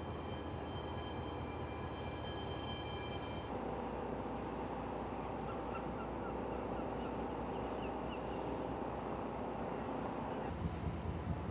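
Steady low hum of a con-ro cargo ship underway, heard from on deck, with thin high steady tones that stop about three and a half seconds in. A few faint short bird chirps come in the middle, and wind buffets the microphone near the end.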